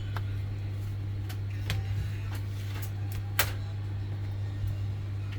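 Steady low electrical hum, with a few light clicks scattered through it, the sharpest about three and a half seconds in.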